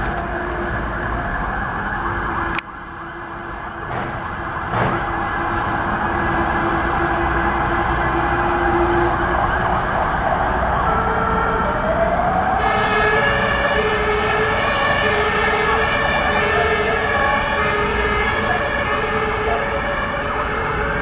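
Fire engine sirens wailing over the noise of heavy vehicles and traffic, growing louder after a sudden drop a few seconds in. About twelve seconds in, a second siren joins with short alternating tones repeating roughly once a second.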